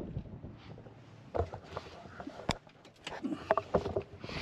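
Scattered clicks and knocks of hands working inside a pickup's cab, with one sharp click about two and a half seconds in, as the hazard flashers are switched on. Light wind noise underneath.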